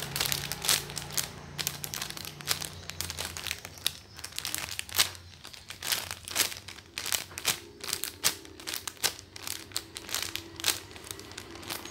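Clear plastic bag crinkling as it is handled and squeezed, with a squishy toy inside; a dense, irregular run of crackles.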